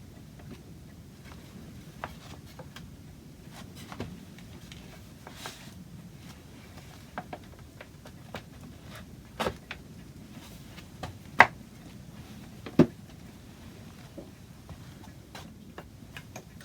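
Scattered light clicks and taps of wood and tools being handled on a workbench, with three louder knocks in the middle stretch, the second the sharpest.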